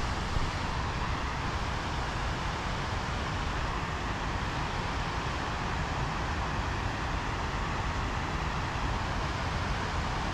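Steady rush of water spilling over a stepped concrete weir, with an uneven low rumble of wind on the microphone.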